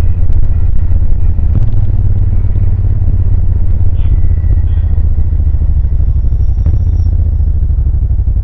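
Exhaust of a 2000 Suzuki VL1500 Intruder LC's liquid-cooled V-twin engine, running steadily as the motorcycle rides along.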